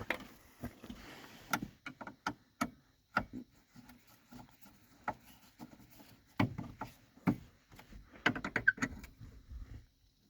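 Hand-tool work on a hood latch: irregular clicks and metal knocks of a screwdriver and screws as the latch mounting screws are tightened, with a quick run of clicks near the end.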